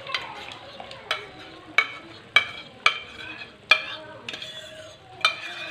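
An enamel bowl knocking and scraping against a karahi as yogurt is emptied into the gravy: about seven sharp, irregularly spaced knocks, each ringing briefly. Under them the masala gravy sizzles steadily in the pan.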